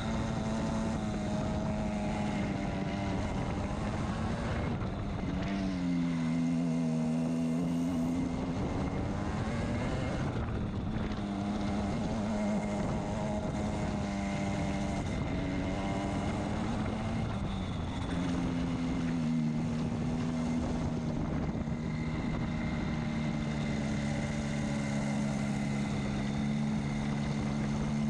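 RENNtech SLR racing kart's engine running hard on a lap. Its pitch falls and climbs again several times as the kart slows for corners and accelerates out of them.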